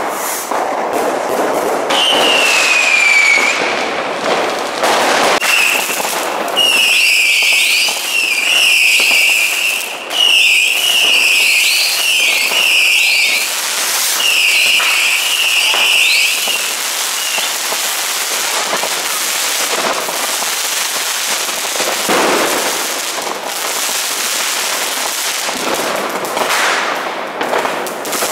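Fireworks going off all around: a continuous run of bangs and crackling from firecrackers and rockets. A long falling whistle comes about two seconds in, and a string of about ten short, shrill whistles, each dipping in pitch, runs through the middle.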